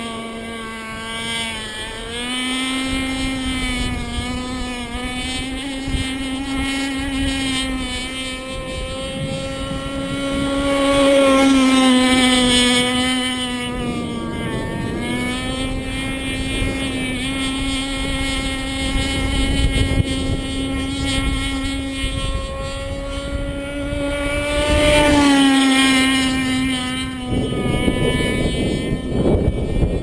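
RC catamaran boat's motor running at speed on the water, a steady high whine that rises and falls slightly in pitch. Wind rumbles on the microphone and grows strong near the end.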